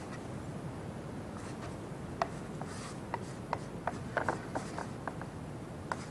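Hands kneading soft maida dough on a plate: faint rubbing with scattered light taps, most of them in the middle of the stretch.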